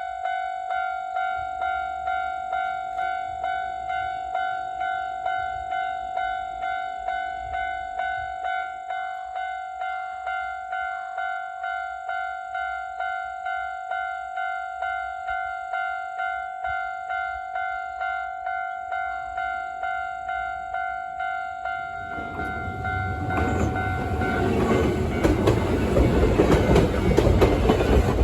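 Japanese railway crossing bell ringing in an even repeated ding, about one and a half strokes a second. About 22 seconds in, an Iga Railway Iga Line electric train approaches and passes over the crossing, and its wheel and running noise grows loud and drowns the bell toward the end.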